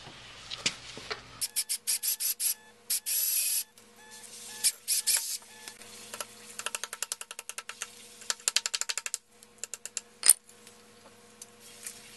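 Cordless drill boring a hole through a motorcycle swingarm with an intermediate-size bit in short stop-start bursts, the bit chattering in a fast run of clicks. About ten seconds in comes a single sharp metallic strike, a hammer tap.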